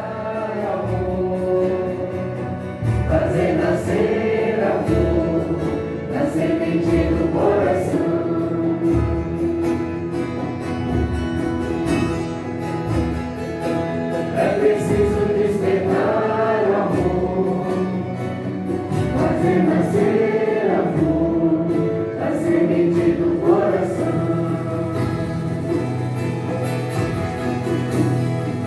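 A Santo Daime hymn sung by a group of voices in unison, with long held notes, over a steady low beat that comes about once a second.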